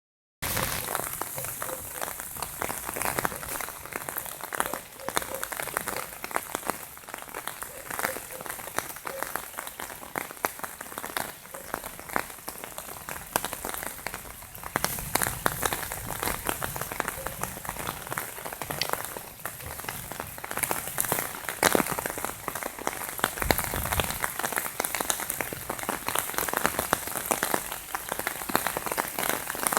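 Heavy downpour: a dense, steady hiss of rain with many separate drops striking close by, starting about half a second in.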